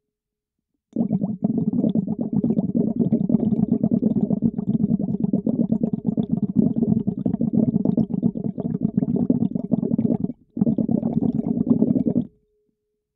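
Air bubbles blown through a tube into a bowl of water, heard underwater through a latex-covered microphone: a dense, low, rapid bubbling. It starts about a second in, breaks off briefly near ten seconds, then resumes and stops about a second before the end.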